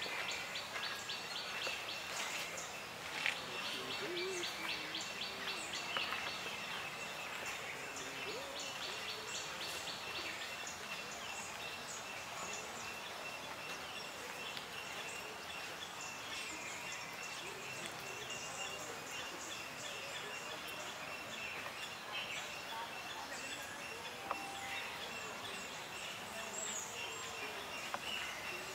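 Outdoor ambience: a steady hiss with birds chirping, including a rapid trilling call in the first three seconds and again around five to eight seconds in.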